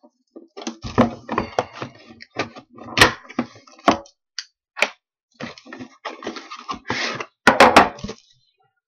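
Plastic shrink wrap crinkling and a cardboard outer box being pulled off a sealed hockey card box, with irregular knocks and taps as the box is handled on a table.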